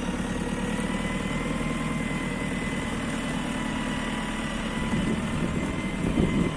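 JCB 2CX backhoe loader's diesel engine running steadily, with a thin steady whine above the engine note. It swells briefly louder twice near the end.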